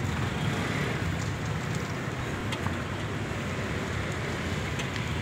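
Steady street background noise with a low rumble, and scattered faint crackles from whole fish grilling over a charcoal fire.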